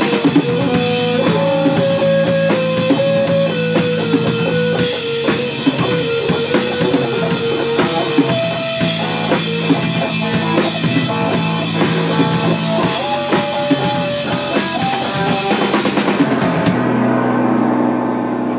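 Rock music with a full drum kit, guitar and bass. Near the end the drums and cymbals drop out, leaving low held notes ringing.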